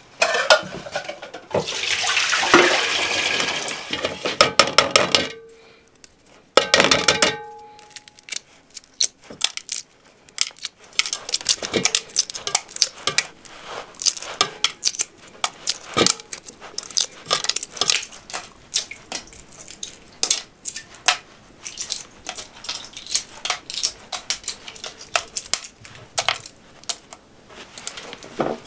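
Water pours into a metal cooking pot amid clanks of pots, and a pot rings briefly after a knock. Then come many small dry crackles of hard-boiled eggshells being cracked and peeled by hand.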